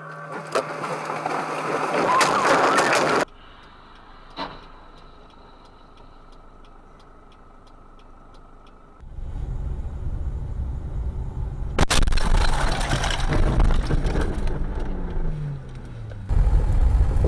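Dashcam car audio from several clips: engine and road noise rising for the first few seconds, a quieter stretch with a single click, then a low engine rumble broken by a sharp bang about twelve seconds in.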